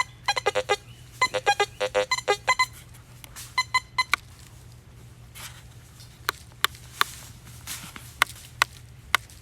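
Teknetics Patriot metal detector sounding target tones: quick runs of short beeps at several different pitches during the first four seconds or so. After that come only a few faint, short clicks and chirps.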